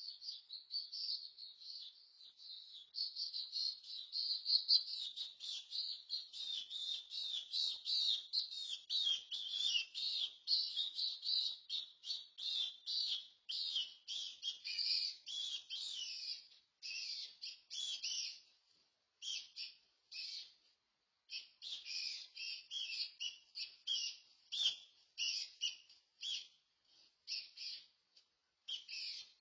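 An unidentified animal giving a rapid, high-pitched chattering run of chirps, many notes a second. The chatter is continuous at first and broken by brief pauses in the second half.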